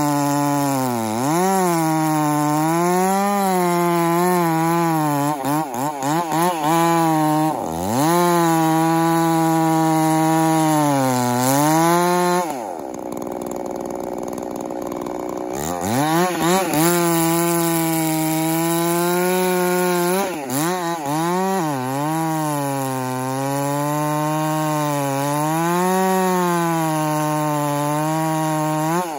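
Two-stroke chainsaw cutting through a large pine log at high revs, its pitch sagging and recovering as the chain loads up in the cut. About halfway through it drops to idle for a few seconds, then revs back up and cuts again.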